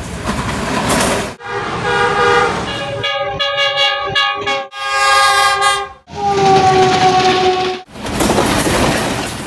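Diesel locomotive horns sounding in several blasts cut together, between stretches of the rumble of passing trains. Rumble for about the first second and a half, then horn blasts with sudden breaks, ending in one long blast that drops slightly in pitch, before the rumble of a passing train returns near the end.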